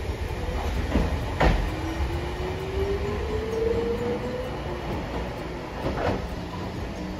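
Hiroden Green Mover low-floor tram pulling into the station, its wheels giving a low rumble with sharp knocks over rail joints or points, about a second and a half in and again near six seconds. In between, an electric motor whine rises steadily in pitch.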